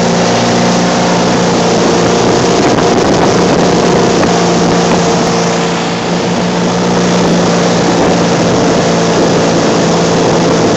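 Tow boat's engine running steadily at water-skiing speed, a constant drone under the rush of wind and water as the hull plows ahead. The sound dips slightly for a moment about six seconds in.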